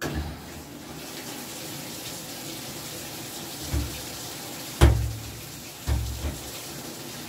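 Top-loading washing machine filling with water, a steady rush that starts suddenly. Three dull thumps come about halfway through, the middle one a sharp knock and the loudest.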